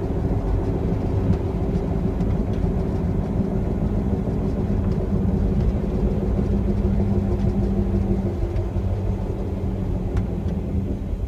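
2008 BMW 325i E91 on the move: a steady low rumble with a humming drone from the rear of the car, which weakens about eight seconds in and comes back near the end.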